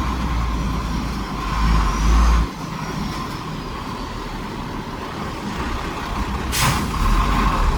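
Heavy diesel earthmoving machinery working under load, with a steady whine over a deep engine rumble. The rumble drops off sharply about two and a half seconds in and builds again near the end, and a single sharp metallic clank comes shortly before.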